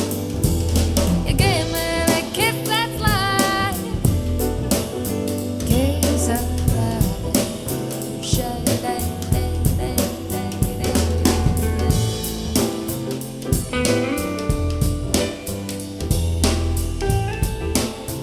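Recorded music playback of a soul jazz track: a drum kit keeps a steady beat under a bass line, with a gliding sung or melodic line about two seconds in, as heard through an in-ear monitor.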